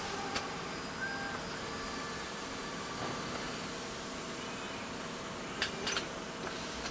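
Steady noise of factory machinery with a faint hum. Two short electronic beeps sound in the first half, and a few sharp clicks come near the end.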